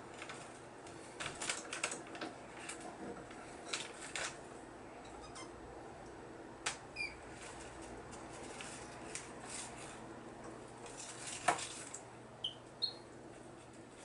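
Brown-headed parrots moving about among wooden perches, rope and newspaper: scattered sharp clicks, taps and papery rustles, the loudest a little before the end, with a few short high chirps. A faint steady hum lies underneath.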